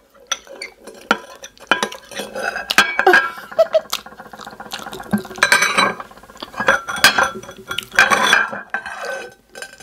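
A metal spoon scraping and clinking against a bowl as the last of the food is scooped out, in repeated short scrapes and knocks, with the spoon set down in a bowl near the end.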